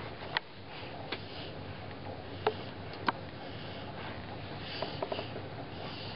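A person's soft sniffing and breathing close to the microphone, with about four sharp small clicks in the first half and a few fainter ticks about five seconds in.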